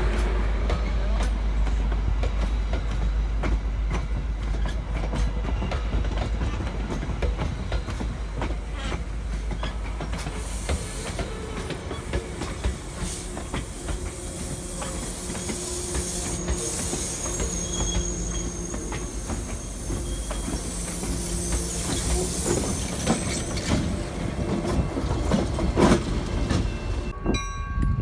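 CapeFLYER passenger coaches, single-level and bilevel, rolling past close by. The wheels clack over the rail joints over a steady rumble, with a brief high wheel squeal about halfway through.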